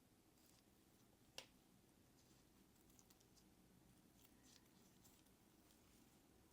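Near silence with one sharp little click about a second and a half in and a few faint ticks after it: small watch parts and a tool being handled during disassembly of the watch module.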